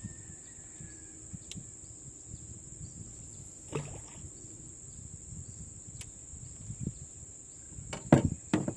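Steady high-pitched insect drone, crickets or similar, with low rustling underneath. There is a single knock partway through and a few louder knocks or handling thumps near the end.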